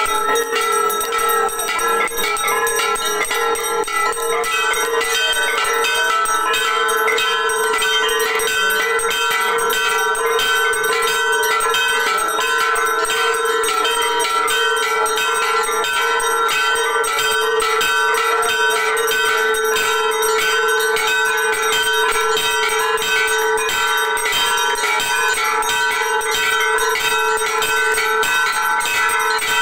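Temple bells rung rapidly and without pause during an aarti, a steady clangour of overlapping ringing tones.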